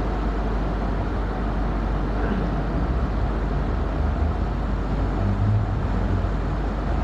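Steady background noise: a constant low rumble with an even hiss over it, unchanging throughout.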